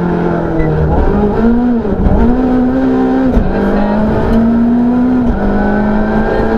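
Citroën C2 R2 rally car's engine, heard from inside the cabin, running hard under load through a stage. Its note climbs and drops back about four times as the driver accelerates, lifts and shifts gear.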